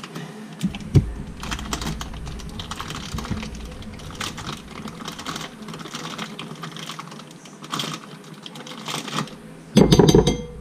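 Spoon scraping and tapping as cream cheese is scooped from a plastic-wrapped brick into a glass bowl: a run of small scrapes and clicks, with a louder cluster of knocks near the end.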